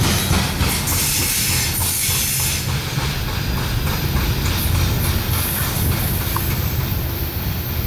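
Loaded coal hopper cars of a freight train rolling past, steel wheels clacking and hissing on the rails. The hiss dies away about three seconds in as the end of the train moves off, leaving a low rumble.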